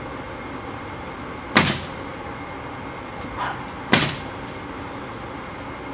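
A dog barks twice, two sharp loud barks about two and a half seconds apart, over a steady background hum.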